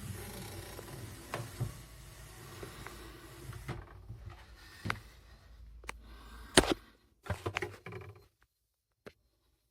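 Handling knocks and clicks from the wooden pull-out organizer and its hardware inside a cabinet, over a low steady rumble. The sharpest knock comes about six and a half seconds in, followed by a quick run of smaller knocks.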